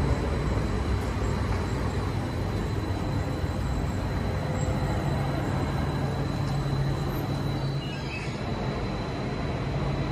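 Electric passenger train running along the platform close by: a steady rumble of wheels and running gear, with a steady low motor hum and a thin high whine.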